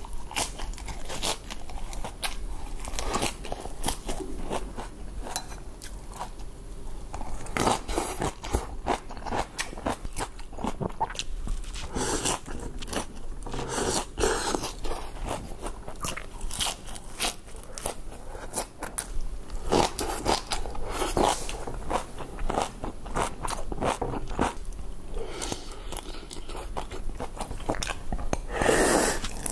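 Close-miked eating: crisp lettuce leaves crunching and being chewed in quick, irregular bites, with mouthfuls of instant noodles in between. Near the end there is a louder stretch as broth is drunk from the bowl.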